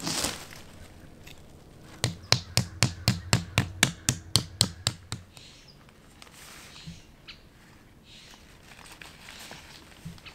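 A tent stake being hammered into the ground: about fifteen quick, sharp blows at about five a second, starting about two seconds in and lasting about three seconds. Softer rustling comes before and after.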